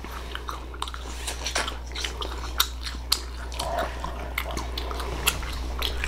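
A person biting into and chewing a slice of fruit close to the microphone, with irregular crunchy clicks and wet mouth sounds.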